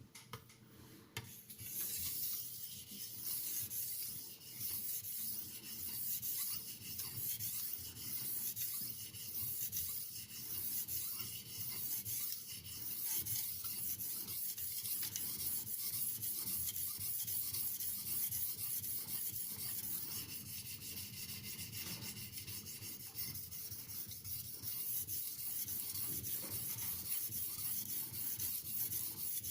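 Steel knife blade rubbing on a fine 6000-grit (FEPA 1500) aluminium oxide sharpening stone. The stroking runs on without a break, starting about a second and a half in.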